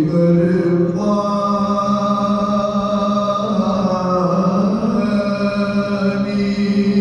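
Soz khwani: men's voices chanting an unaccompanied Urdu elegy on long held notes, stepping to a new pitch about a second in and again about five seconds in.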